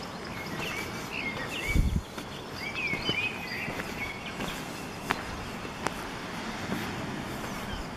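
A bird singing in short chirps that bend up and down through the first few seconds, over footsteps on a tarmac lane and steady outdoor background noise. A low thump about two seconds in, and a couple of sharp clicks later.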